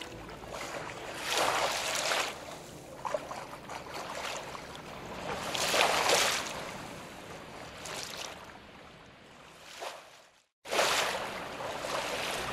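Sea surf sound effect: waves wash in and draw back in three slow swells. The sound cuts out completely for a moment about ten seconds in, just before the last swell.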